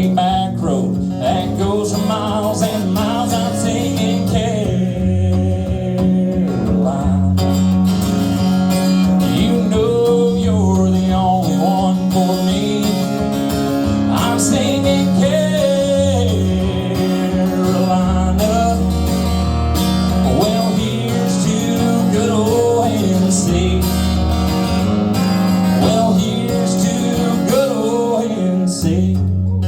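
A country song played live, led by strummed acoustic guitar with a steady low bass accompaniment and a wavering melody line on top.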